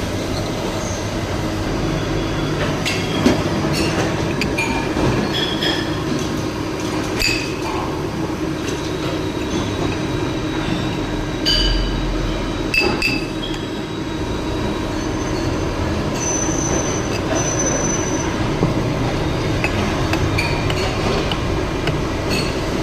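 CNC machine running steadily, with scattered metallic clinks and brief high-pitched squeals over a constant mechanical hum.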